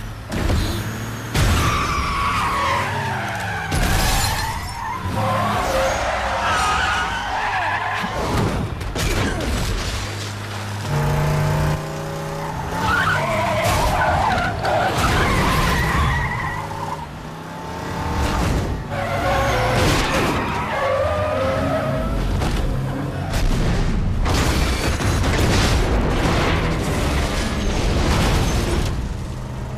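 Action-film sound mix of cars racing: engines, tyres screeching in repeated squeals, and sharp crashes and impacts, over a low music bed.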